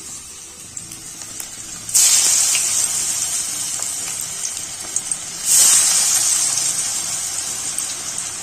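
Flour-coated potato wedges deep-frying in hot oil in a kadhai: a steady, loud sizzle. It jumps up suddenly about two seconds in and again about five and a half seconds in, as fresh wedges go into the oil, then slowly eases off.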